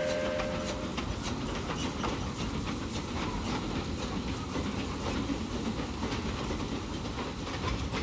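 Narrow-gauge steam train running, its wheels and carriages clattering and clicking over the rails with a noisy rush. A steady whistle note ends about a second in.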